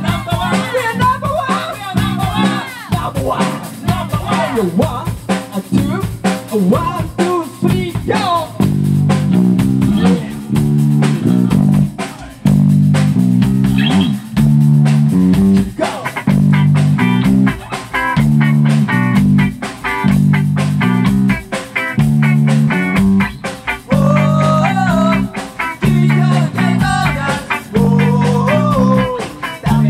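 Live rock band playing: electric guitar, bass guitar and drums with a singer. The voice drops out after about eight seconds while the band plays on in a steady rhythm, and the singing comes back near the end.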